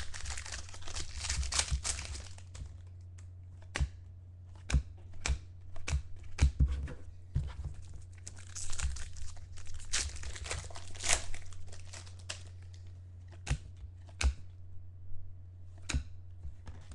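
Foil wrappers of 2013 Topps Finest football card packs being torn open and crinkled by hand, in two bouts: one at the start and one from about nine to eleven seconds in. Between and after come light clicks and taps of cards being handled, over a steady low hum.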